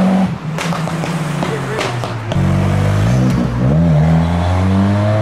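Modified car's engine revving hard: the pitch climbs, falls away just after the start, then picks up again about two seconds in and climbs once more, with a few sharp cracks early on.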